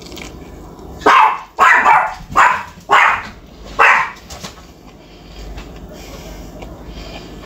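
Dog barking five times in about three seconds, starting about a second in.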